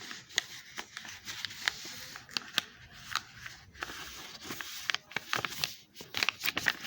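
Sheet of paper rustling and crinkling as it is bent and creased into a paper airplane, with many short sharp ticks, getting busier near the end.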